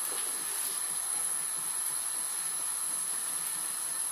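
Steady hiss of cooking on a gas hob, with a pan of creamy chicken tikka masala sauce simmering.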